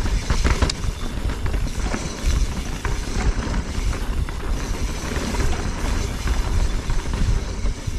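Specialized Stumpjumper EVO 29er mountain bike riding fast down a dirt trail, heard from a handlebar-mounted camera: a steady low rumble of tyres on dirt and wind on the microphone, with frequent small clicks and knocks as the bike rattles over bumps.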